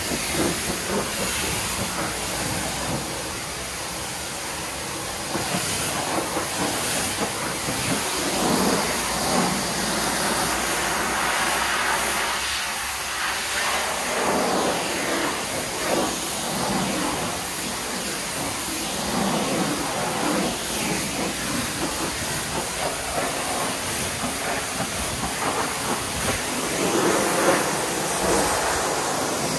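Pressure washer jet hissing steadily as it sprays water onto window frames and glass, the splatter swelling and fading as the spray sweeps across the surfaces.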